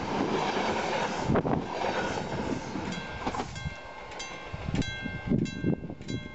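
Passenger train coaches running past close by, the wheel and track noise loud at first and fading as the train draws away. From about three seconds in, the level crossing's warning bell rings in regular strokes, roughly one every 0.6 s.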